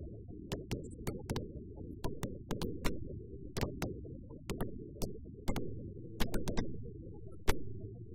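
Aerial fireworks bursting: an irregular run of sharp bangs, two or three a second, over a steady low rumble, with the loudest bangs about three and a half seconds in and near the end.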